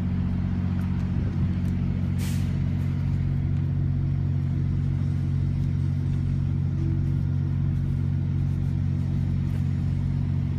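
Vehicle engine idling steadily: a loud, even, low hum.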